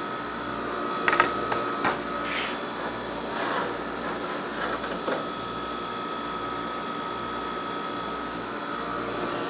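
A freeze dryer running with a steady hum and a high whine. Over it come a few light metallic clicks and rattles as wire dehydrator trays are slid out along their rails.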